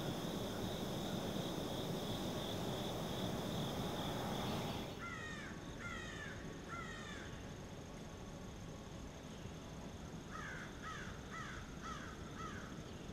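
A steady drone of crickets or katydids, cut off abruptly about five seconds in. Then a crow caws: three spaced calls, and near the end a quicker run of five.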